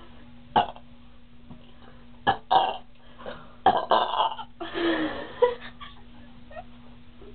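Girls burping on purpose after gulping cream soda: a string of loud burps, short ones at first and two longer, drawn-out ones a little past the middle.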